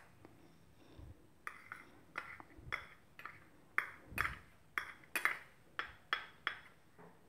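A spoon clinks and taps against a small bowl about a dozen times at an irregular pace while oil and cocoa powder are measured in and stirred together.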